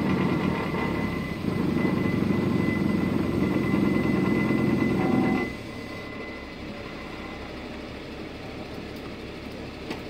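Recovery crane truck working its boom: the engine runs loud and steady with a thin high whine over it, then drops back to a quieter idle about five and a half seconds in.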